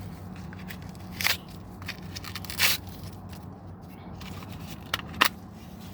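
Heavy-duty tape being peeled away by hand, giving four short sharp crackles and rips, two of them close together near the end, over a steady low hum.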